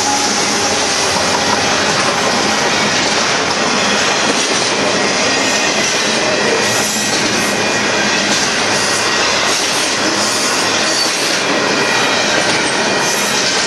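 Double-stack container cars of a Union Pacific intermodal freight train rolling past, their steel wheels on the rails making a loud, steady rolling noise.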